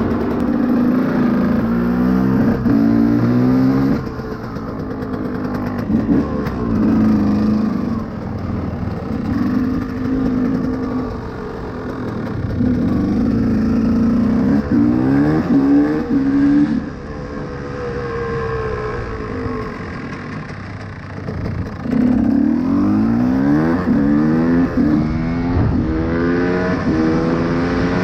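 KTM EXC 125's single-cylinder two-stroke engine ridden hard through the gears: the pitch climbs in repeated rising sweeps, drops back and builds again about every four seconds.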